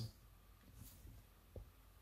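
Near silence: faint room tone with a low hum, and one soft, low bump about one and a half seconds in.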